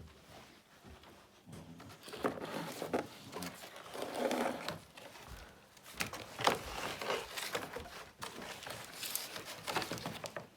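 Stiff, curled sheets of old birch bark being handled, crackling and rustling irregularly, with a few sharper crackles.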